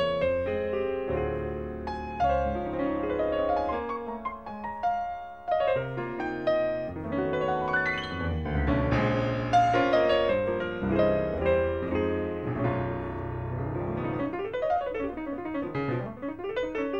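Piano music, with quick rising and falling runs of notes near the end.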